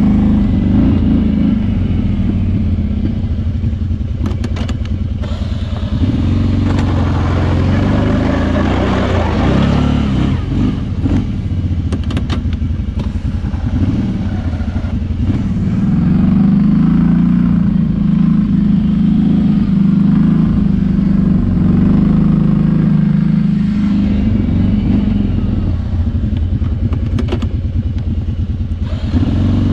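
Kawasaki Brute Force 650i ATV's V-twin engine running under varying throttle while plowing snow. The engine note climbs and holds higher for several seconds past the middle, then drops back. A few short knocks come through near the start, midway and near the end.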